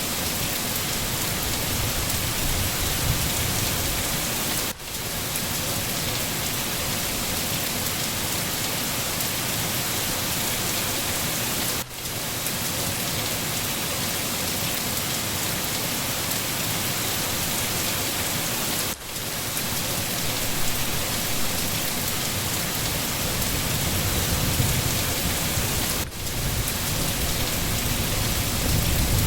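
Steady rain falling on foliage and ground, with low rumbling of distant thunder toward the end. The rain briefly dips in level about every seven seconds.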